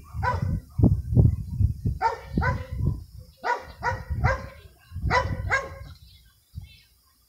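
Black-and-white Scottish shepherd dog barking in short, high yips, about eight in groups of one to three, over a low rumble.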